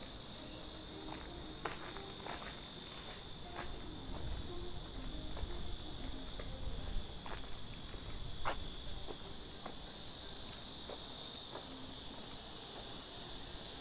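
A steady, high, shrill chorus of insects, swelling slightly near the end, with scattered short clicks over it.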